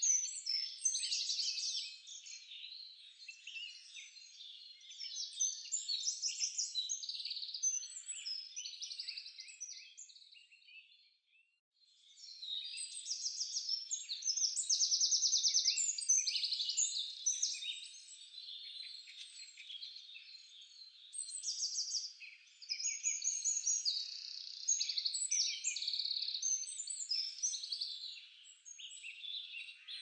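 Many small birds chirping and trilling over one another in a high-pitched chorus. It drops out briefly about eleven seconds in, then resumes.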